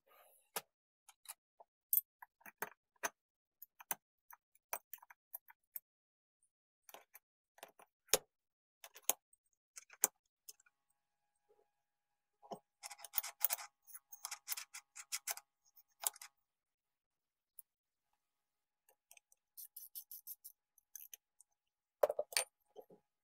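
Metal parts of a Makita UT2221 power mixer's gearbox clicking and tapping as they are fitted into the aluminium housing: separate sharp clicks from the circlip pliers and shaft, a stretch of rapid clatter as the gears go on about halfway, and louder knocks near the end.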